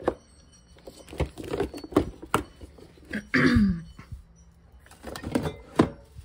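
Glass bottles, jars and cans knocking and clinking against each other and the refrigerator door shelves as they are moved around, in a series of separate clicks and clunks. About halfway through there is a short, louder sound that falls in pitch.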